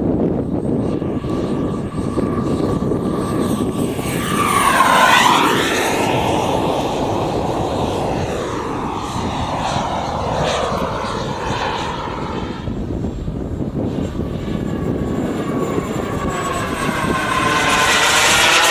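JetCat turbine of a radio-controlled F-5E Tiger II model jet in flight: a steady rushing whine that swells as the jet makes a close pass about five seconds in and again near the end.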